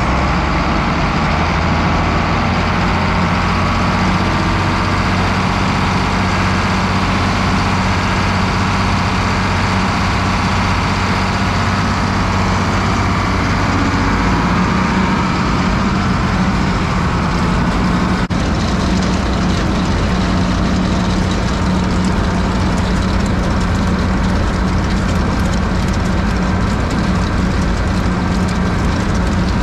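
International 1066 Turbo tractor's diesel engine running steadily, driving a Kelly Ryan silage bagger as chopped oats and peas are unloaded from a forage wagon onto its conveyor. The engine hum shifts higher in pitch about halfway through.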